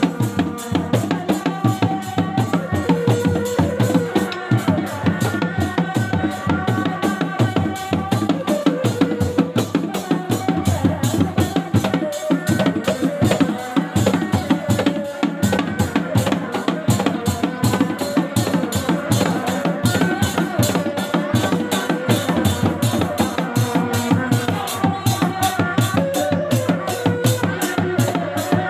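Sundanese reak ensemble playing in place: rapid, dense interlocking strokes on dog-dog drums, with a wavering reedy melody line, typical of the tarompet, over the beat.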